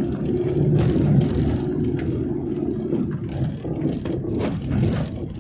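A vehicle engine running with rumbling road noise, along with a few scattered knocks and rattles.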